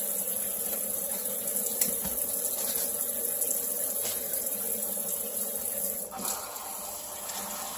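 Kitchen faucet running steadily into a metal sink while raw turkey giblets are rinsed under the stream. The sound of the splashing changes and drops a little about six seconds in.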